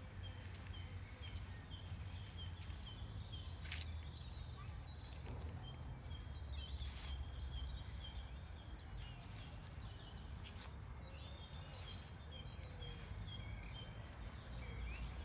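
Small songbirds singing, with many short high chirps repeated in quick series, over a steady low rumble. A few sharp clicks break in now and then.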